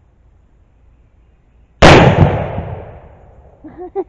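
A single shot from a .54-calibre Lyman Plains Pistol, a percussion-cap black-powder muzzleloader, about two seconds in: one sharp, loud report that dies away over about a second.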